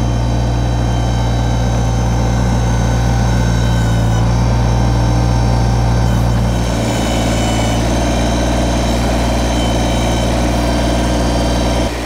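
Kubota BX25D subcompact tractor's three-cylinder diesel engine running steadily while its backhoe digs, the engine note changing slightly about seven seconds in.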